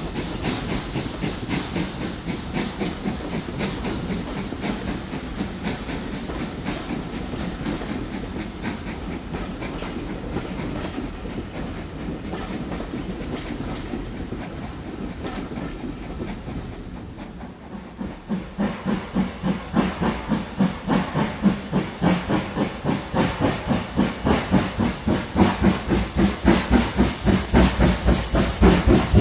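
Carriages of a departing train rumbling and clattering over the rail joints. About two-thirds of the way in this gives way to the steady exhaust beat of a steam locomotive, growing louder as it approaches.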